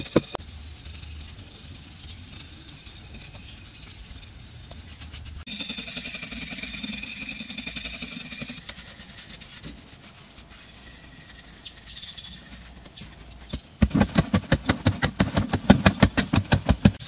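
A hand tool scraping and chipping soft sandstone in quick, even strokes, about five a second, loudest over the last few seconds. Before that come quieter stretches with scattered scrapes and a steady high whine.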